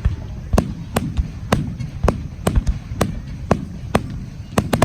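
Aerial fireworks bursting in a rapid run, sharp bangs about two a second over a low rumble.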